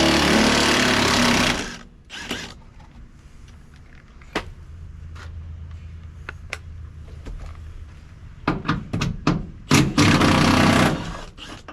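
A power tool, most likely an impact wrench, runs in two bursts to back out the seat-belt anchor bolts: about two seconds at the start and about a second near the end. Between the bursts come scattered clicks and knocks of metal parts being handled.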